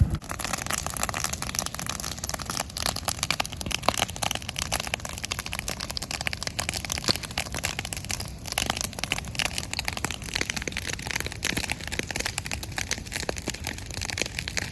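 Dry zebra grass burning, crackling and popping densely and continuously.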